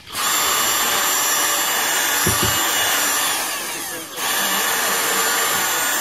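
Cordless drill running at speed, boring through the thin plastic housing of a wireless modem. It winds down and stops briefly about four seconds in, then starts again.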